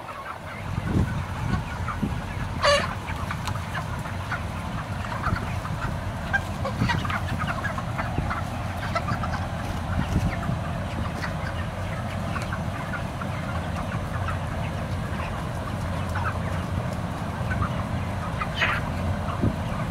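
A large flock of 35-day-old broiler chickens clucking and chirping continuously over the steady low hum of the barn's big exhaust fans. One louder, sharper call stands out about three seconds in, and another near the end.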